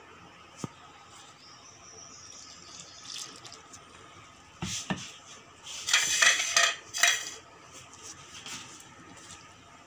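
A hand mixing water into flour in a steel bowl: soft rubbing and scraping, a sharp click under a second in, two knocks against the bowl just before five seconds, and a loud, rough clattering rush for about a second and a half from about six seconds in.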